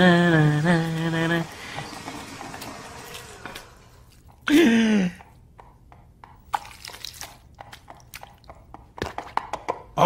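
A voice singing a tune in held, steady notes that stop about a second and a half in. Midway there is a short vocal sound sliding down in pitch, and near the end faint scattered clicks and taps.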